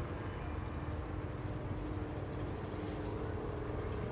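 A motor or engine running steadily: a low rumble with a steady hum above it that holds through the whole stretch.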